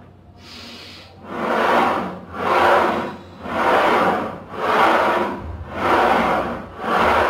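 Plate-loaded leg press sled running up and down its rails during reps, a rhythmic rasping rub that swells and fades about once a second, starting about a second in.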